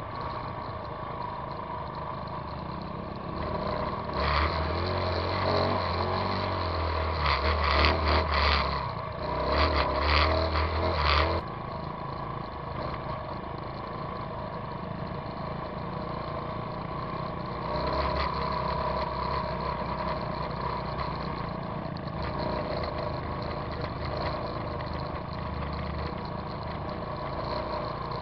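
Trail motorcycle engine running steadily while riding a dirt track. It grows louder, with knocks and a heavy low rumble, from about four to eleven seconds in, then settles back.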